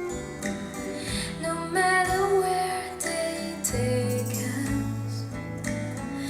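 Gentle music played from a CD through a Ruark Audio R5 speaker system, with a slow melody over sustained bass notes.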